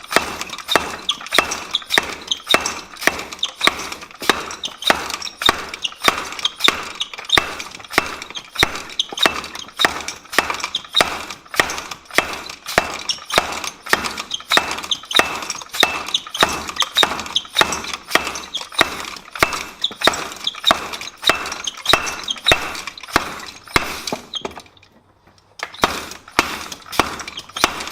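Treadle hammer striking a large steel piece again and again, about two ringing metal blows a second. The blows pause for about a second near the end, then start again.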